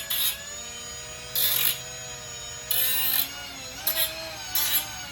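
Power cutting tool running with a steady high whine, cutting into a sheet body panel in five short, louder bursts about a second apart.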